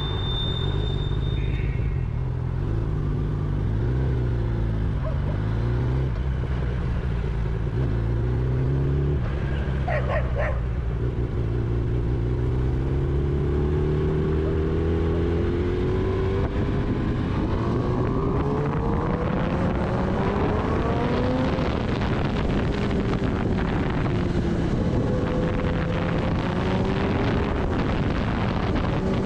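Kawasaki Ninja ZX-10R inline-four engine heard from the rider's seat, running at low revs with small rises and falls at first, then accelerating through the gears from about halfway, its pitch climbing and dropping back at each shift. Wind noise on the microphone grows as the speed builds.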